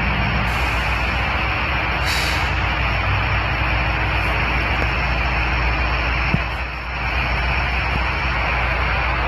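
Norfolk Southern diesel locomotive running steadily with a low engine hum, and two short air hisses in the first couple of seconds. A single sharp click comes a little past the middle.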